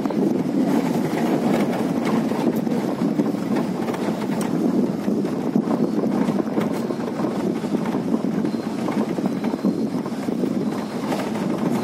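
Safari jeep driving along a dirt forest track: a steady rumble of engine and tyres, with wind buffeting the microphone.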